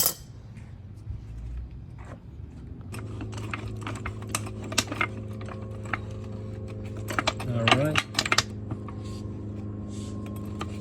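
Jack lifting a pickup truck: a run of light metallic clicks and clanks as it is worked, with a steady hum that comes in about three seconds in.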